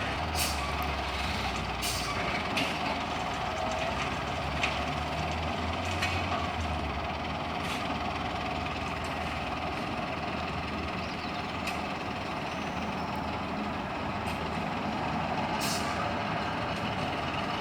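Heavy truck engine running steadily, with several short hisses scattered through.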